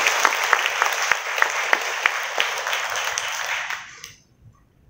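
Audience applause: a crowd clapping, dying away about four seconds in.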